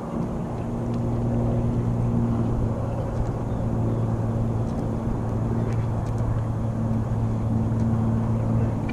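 A steady low motor hum at one held pitch with overtones, over a wash of wind and water noise; it stops near the end.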